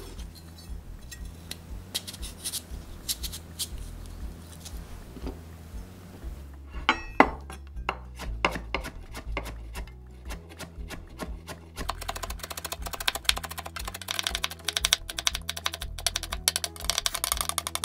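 Chef's knife cutting carrot on a wooden cutting board: scattered single cuts at first, then fast, even chopping through the second half as the carrot slices are cut into thin strips.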